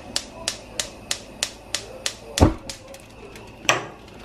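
Gas range spark igniter clicking about three times a second as the burner knob is held turned. The clicking stops with a louder thump about two and a half seconds in, when the burner lights, and a single sharp knock follows near the end.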